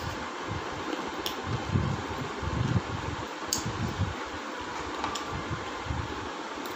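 Close-up chewing of a mouthful of chicken, with a few light clicks of fingers and bones on a plate, over a steady fan-like background noise.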